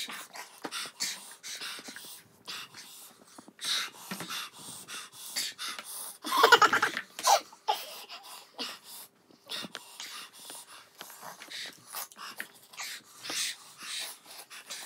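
Rapid hissing breaths, sniffs and gasps from people sucking air through a mouth burning from extremely spicy noodles, with a loud vocal outburst of laughter about six and a half seconds in.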